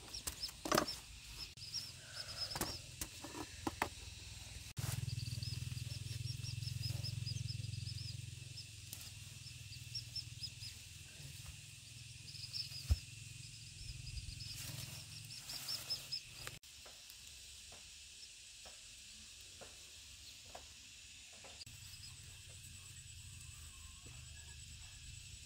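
Rural outdoor ambience: a steady high insect drone with trains of short high chirps from insects or small birds, and scattered knocks and rustles of handling. A low rumble comes in sharply about five seconds in and cuts off about sixteen seconds in.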